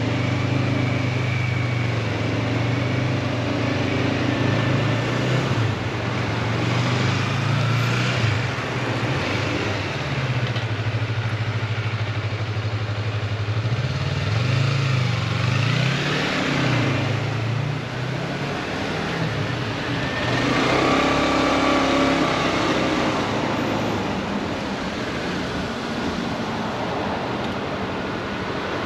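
Motorcycle engine running at low road speed, its note holding steady and then rising and falling a few times as the bike eases on and off the throttle, over steady wind and road noise.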